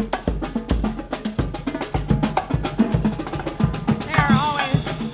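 Marching band drum line playing a cadence: snare drums, bass drum and crash cymbals striking in a steady beat.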